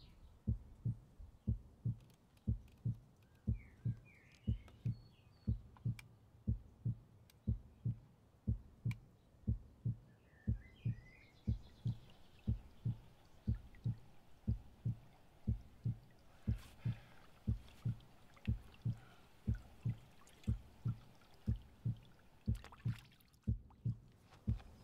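Slow, steady heartbeat-like thudding on the film's soundtrack, a low pulse repeating about one and a half times a second. Faint bird chirps come in twice, a few seconds in and again near the middle.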